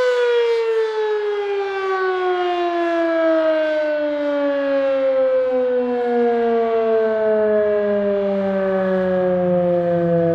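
Darley 3V8 fire siren winding down: a chord of siren tones sliding steadily lower in pitch as the rotor coasts to a stop.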